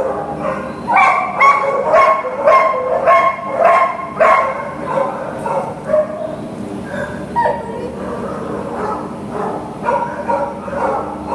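Dog barking in short, high-pitched barks, about two a second for several seconds, then in scattered single barks.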